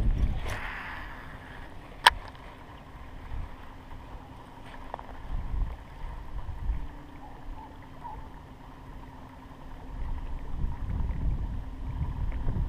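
Wind buffeting the camera's microphone with a low, gusty rumble during a cast and retrieve with a baitcasting rod. A single sharp click comes about two seconds in, and a faint steady hum runs under the rest.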